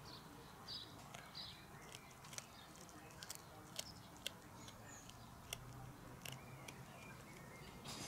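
A cat chewing a freshly caught small bird: faint, irregular sharp clicks and crunches of teeth on bone and feathers, several a second apart.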